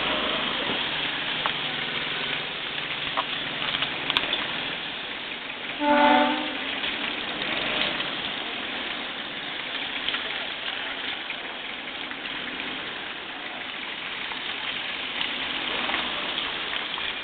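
Steady hissing noise, with one short horn blast of about half a second some six seconds in.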